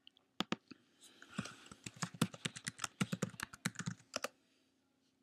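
Computer keyboard typing: a quick, uneven run of keystrokes as a password is entered at a login prompt, stopping about four seconds in.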